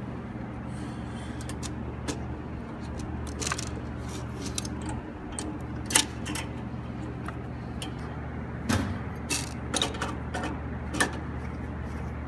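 Scattered metallic clicks and taps as a solenoid valve and its stainless-steel tube fittings are handled and fitted back into place, the sharpest knock about six seconds in and a cluster of clicks near the end, over a steady low hum.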